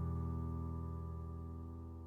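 Instrumental background music: a single held chord slowly fading away.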